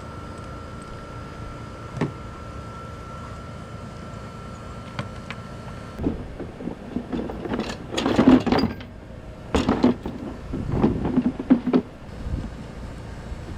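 Metal parts of a finish mower deck being handled, with irregular bouts of clanking and rattling in the second half and a single click a couple of seconds in.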